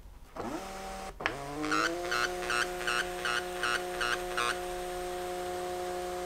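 Peripage A40 thermal printer feeding paper as it prints a text page: its motor whine rises in pitch twice in the first two seconds, then holds steady. For a few seconds a rhythmic chirping, about two or three a second, runs over the whine.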